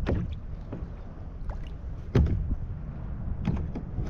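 Water slapping and knocking against the plastic hull of a fishing kayak: a few sharp slaps, the loudest about two seconds in, over a steady low rumble.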